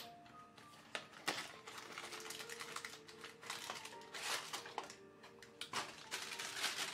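Cardboard box and plastic wrapping rustling and crinkling in a series of irregular handling noises as a boxed wall switch is unpacked, over soft background music with held notes.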